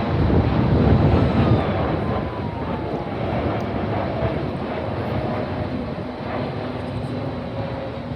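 Jet engines of a Boeing 747-8F freighter (four GEnx turbofans) at climb power on a go-around, passing by. It is a loud rumble that peaks about a second in and then eases, with an engine whine falling steadily in pitch as the aircraft moves away.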